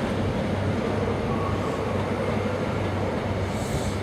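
Diesel engines of Class 43 HST power cars running as one train pulls away and another approaches: a steady low engine drone.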